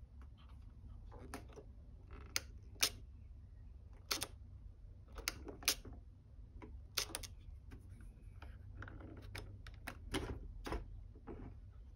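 Irregular sharp clicks and taps of small hard plastic parts being handled and fitted. They come about one or two a second, over a steady low hum.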